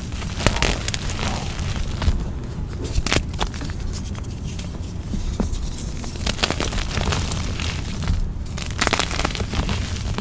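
Blocks of gym chalk crushed and crumbled by hand in a bowl of baby powder and cornstarch: an irregular run of dry crunches and crackles.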